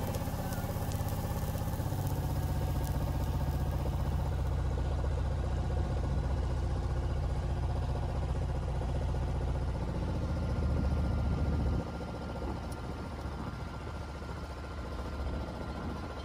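Sailboat's inboard engine running steadily while motoring, a low even drone that becomes quieter about twelve seconds in.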